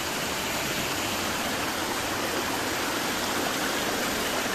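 Muddy storm runoff rushing through a concrete box culvert: a steady, even rush of turbulent floodwater.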